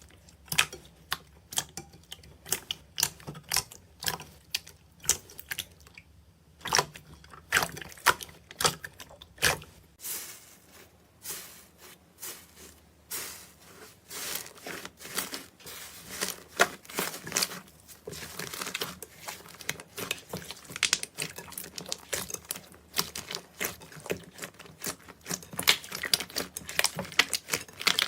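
Hands squeezing and pressing slime, giving off dense, irregular sharp clicks and pops, busier in the second half.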